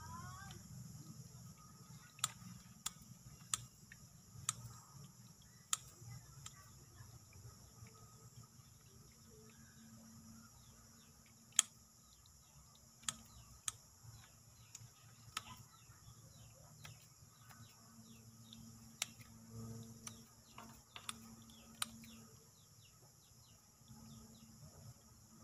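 Hands handling the roots and soil of a root-over-rock bonsai: scattered sharp clicks and light rustling, with one louder click about halfway through. A steady high hum runs underneath.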